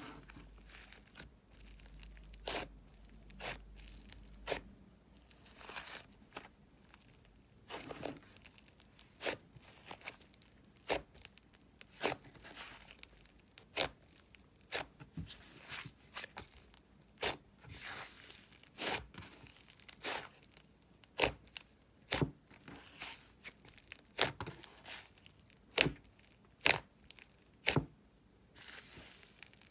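Thick butter slime being squeezed, poked and pulled apart by fingers, giving irregular sharp crackles and pops as the clay-like dough tears and its air pockets burst, one or two a second and more often in the second half.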